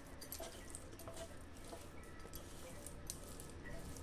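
A hand tossing and mixing spice-coated paneer cubes on a brass plate: quiet, soft squishing with light irregular ticks.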